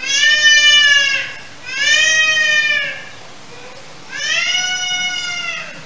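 A goat bleating: three long calls, each lasting over a second, with short gaps between them.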